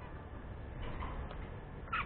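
Budgerigars giving short chirps: a few soft ones about a second in and a louder, sharper one at the end, over a steady low rumble.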